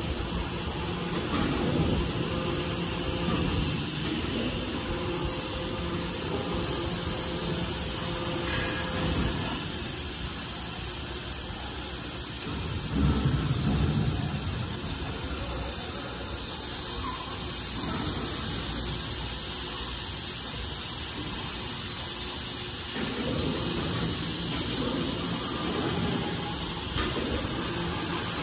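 CNC oxy-fuel gas cutting torch burning through thick steel plate: a steady hiss of the gas jet, with swells of low rumble about a second in, around the middle and near the end.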